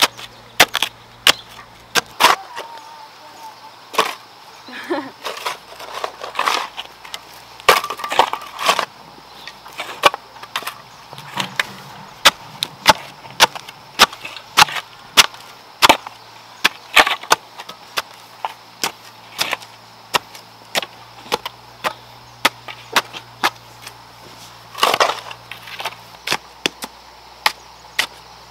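Metal blades of a shovel and a hoe striking and chopping into dry, stony garden soil: a long series of sharp strikes, mostly one or two a second, quickest in the middle.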